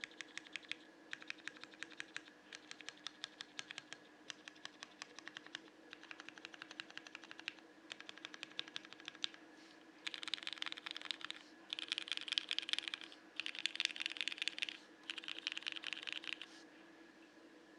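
Typing on a CannonKeys Bakeneko mechanical keyboard with Cherry MX Hyperglide Black linear switches: steady keystrokes at first, then, about ten seconds in, four short runs of much faster, denser key presses.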